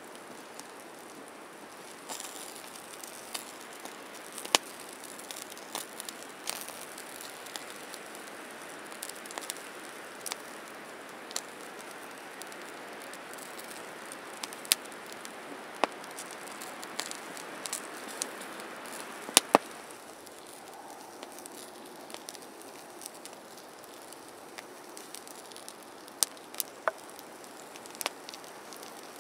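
Wood campfire crackling with scattered sharp pops, over a steady hiss of wet snow falling on the tarp and woods; two loud snaps close together about two-thirds of the way through.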